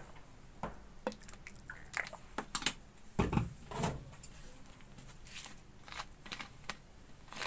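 Faint handling noises: scattered light clicks and ticks, with two soft thumps about three and four seconds in.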